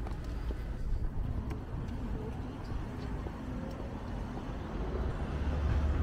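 City street ambience: traffic going by, with faint voices of passers-by. A low rumble swells near the end.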